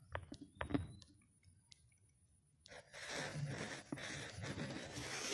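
A few sharp clicks in the first second, a short lull, then a rough rustling close to the microphone from about three seconds in, as a hand moves right by the phone.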